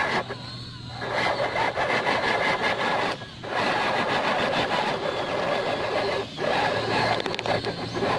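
Axial SCX10 II RC crawler's electric motor and gearbox whining steadily as it drives over dirt, cutting out briefly twice as the throttle eases.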